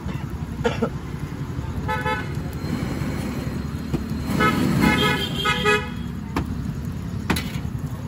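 A vehicle horn tooting three times: a short toot about two seconds in, then two longer ones around the middle, over a steady low rumble. A few sharp clicks are also heard.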